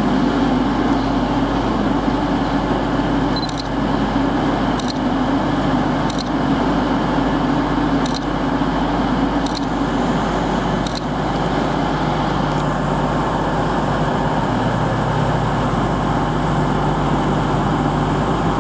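Class 222 Meridian diesel multiple unit standing at the platform, its underfloor Cummins diesel engines idling with a steady low drone.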